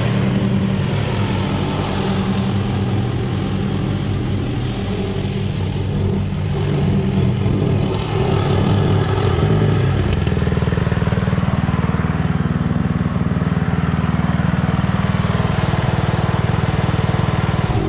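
Craftsman LT1000 lawn tractor, repowered with a 12-horsepower flathead engine, running steadily while mowing. It grows louder from about ten seconds in as the tractor comes close.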